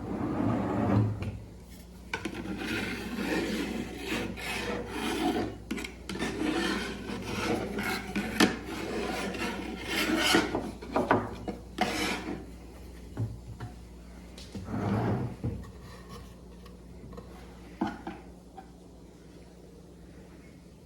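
Homemade puzzle box being handled and shifted about: irregular rubbing and scraping strokes with a few sharp knocks, tapering off over the last few seconds.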